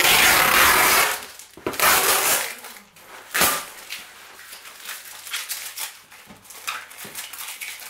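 A parcel's packaging being opened and handled: loud rustling in the first couple of seconds, then quieter rustling with a few sharp clicks.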